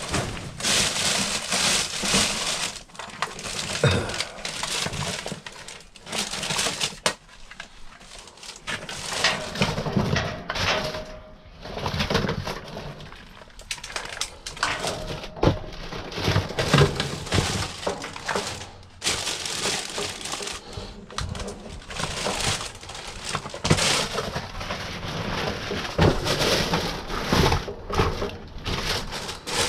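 Scrap metal being handled and loaded by hand: irregular scraping, clattering and knocks, with a few brief squeaks.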